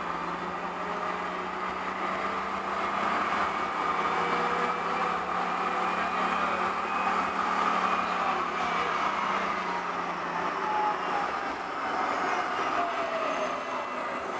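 Series 7000 tram running along its track, heard from inside its rear cab: a steady rolling rumble with a low hum that fades out about ten seconds in.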